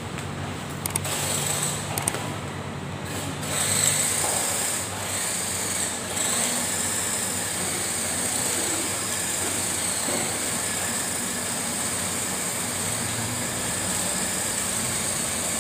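Radio-controlled drift car's electric motor and drivetrain whining steadily as it drives on tile, swelling around four seconds in, with a few sharp clicks in the first two seconds.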